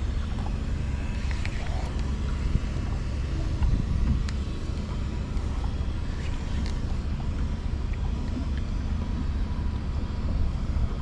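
Low steady hum of an Evinrude outboard motor idling, with wind on the microphone and a few faint light ticks.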